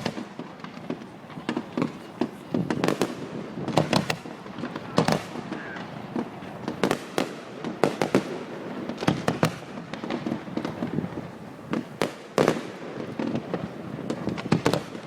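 Fireworks display: a rapid, irregular run of bangs from exploding aerial shells, some in quick clusters, over continuous crackling.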